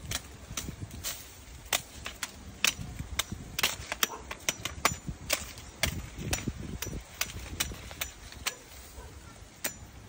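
A hand sickle cutting through green corn stalks: a run of sharp, irregular snaps and cracks, some with a faint metallic ring, over rustling leaves.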